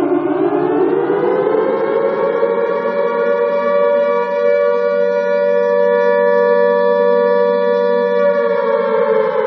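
Alarm siren wailing: its pitch rises over about two seconds, holds steady for several seconds, then begins to fall near the end.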